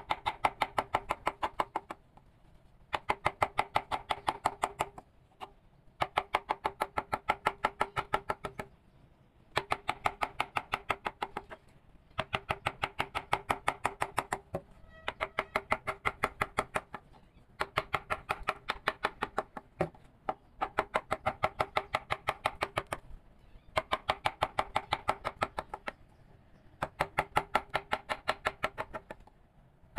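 Mallet tapping a wood-carving chisel into wood in quick, even runs of about seven strikes a second, each strike with a short ring. The runs last two to three seconds, with brief pauses between them.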